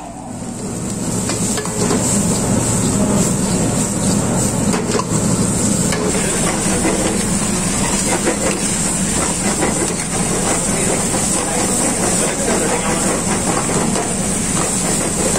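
Gravy with drumstick pieces sizzling and bubbling in a pan on a gas stove, with a metal ladle stirring and scraping against the pan. A steady high hiss runs over it.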